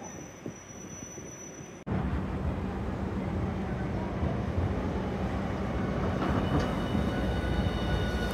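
Hiroden 1000-series Green Mover LEX low-floor tram running in along the platform: a steady rumble of wheels on rail under a low motor hum, with a faint high whine coming in over the last couple of seconds. For the first two seconds it is quieter, then the level jumps suddenly.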